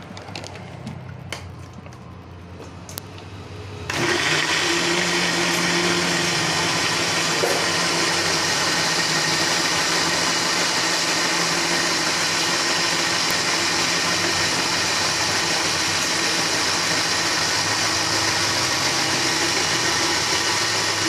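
A few clicks, then an electric blender switches on about four seconds in and runs steadily at one speed, blending sliced red ginger with water.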